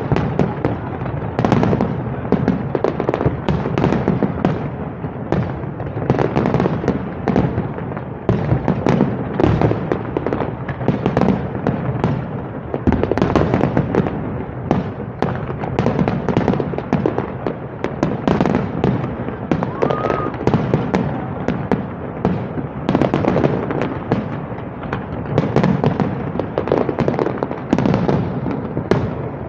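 Aerial firework shells bursting in a dense, unbroken barrage, bang after bang several times a second.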